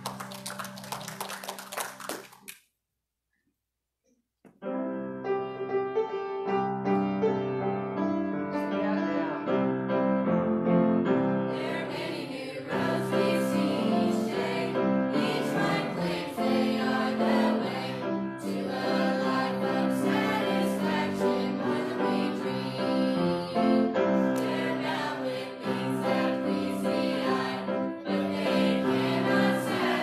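A group of young singers singing a hymn with piano accompaniment. The sound cuts out completely for about two seconds near the start, then the piano and singing come back in.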